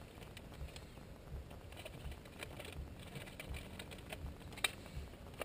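Faint scattered clicks and light knocks of fishing tackle being handled in a boat, over a low rumble, with one sharper click about four and a half seconds in.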